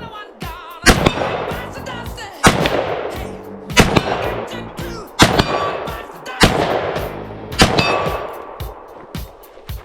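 Six gunshots fired at a slow, even pace, about one every second and a half, each trailing off over about a second.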